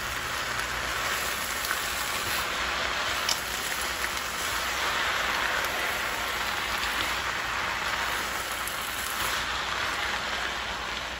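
Egg noodles and vegetables sizzling steadily in a stir-fry pan as they are tossed with wooden chopsticks, with a few light clicks.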